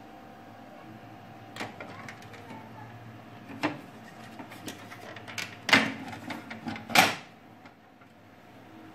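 HP LaserJet P3005 laser printer running after its gear set was replaced, with a steady hum and no grinding noise. Several sharp clacks come through it, the two loudest near the end, and the hum dies away shortly after the last one.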